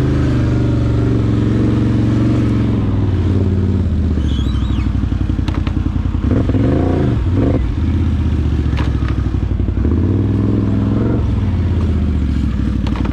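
Can-Am Outlander 850 XT ATV's V-twin engine running under way, its pitch rising and falling as the throttle is worked around the middle. A few short knocks are heard over it.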